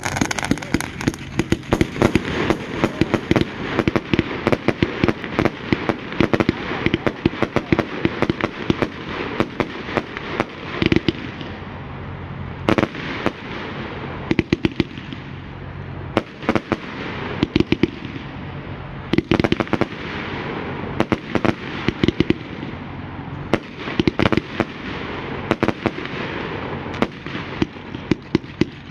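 Multi-shot consumer firework cake firing: a rapid, irregular volley of shots and aerial bursts over a steady crackle.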